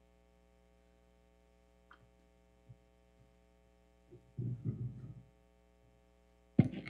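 Steady mains hum from a church sound system. About four and a half seconds in, a second of rustling handling noise is picked up by the lectern microphone, and near the end comes a sharp knock as the reader settles in at the lectern with the book.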